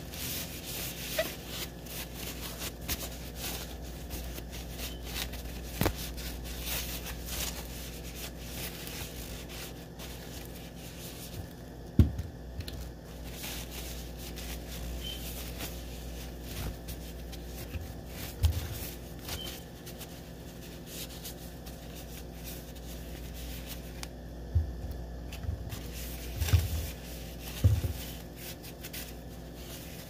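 Damp paper towel rubbing and crinkling over an apple's skin, wiping off sap that has leaked from the apple. A few dull knocks break in, the loudest about twelve seconds in and a cluster near the end.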